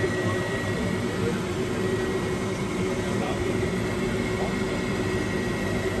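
Live-fire steam boiler rig running with a steady rushing noise, a faint high steady tone above it.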